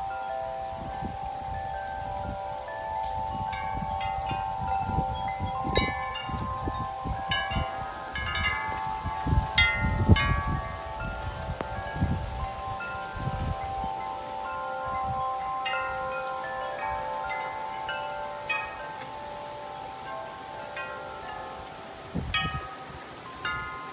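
Metal tube wind chime ringing again and again in gusty storm wind, its tones overlapping and hanging on between strikes. Wind gusts rumble on the microphone, heaviest in the middle stretch and again near the end.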